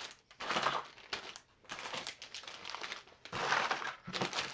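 Plastic bait bags crinkling and rustling in irregular bursts as a stack of packaged soft-plastic lures is handled and set down on a pile of other packages, with a few small clicks of packaging.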